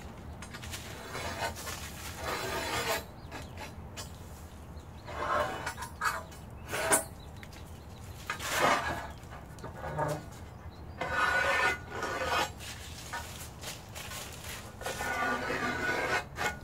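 Hand file rasping along the freshly sawn edge of an aluminium plate to deburr it: a series of scraping strokes, each about a second long, with short pauses between.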